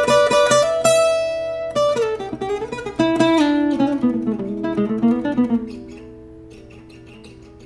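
Solo cutaway acoustic guitar, fingerpicked in a jazzy blues style: a busy run of plucked notes with some notes sliding in pitch in the middle. In the last couple of seconds it drops to a few notes left ringing and fading.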